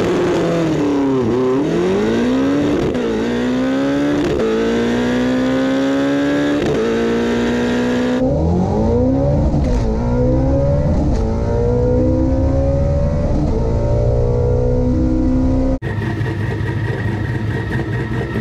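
Twin-turbocharged Shelby GT350 V8 accelerating hard at full throttle on a drag run, its pitch climbing and then dropping back at each of several upshifts. Near the end it settles into a steadier drone.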